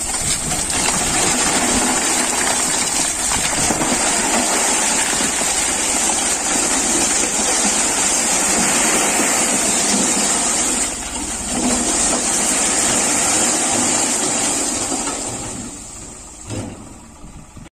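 A load of broken stone and soil sliding and tumbling out of a tipping tractor trailer onto rocks: a continuous rattling rumble with the tractor's engine running under it. It dies away near the end as the trailer empties, with a single knock.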